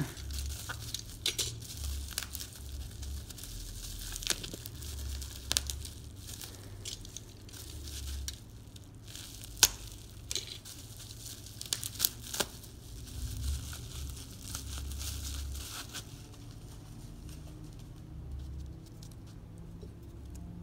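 A parcel being cut open with scissors, its packaging torn and crinkled by hand, with many sharp snips and rustles that die down for the last few seconds.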